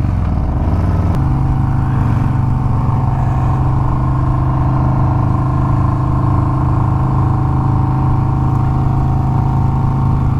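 Harley-Davidson Milwaukee-Eight V-twin motorcycle engine running under way; the engine note changes abruptly about a second in, then holds at a steady cruising pitch.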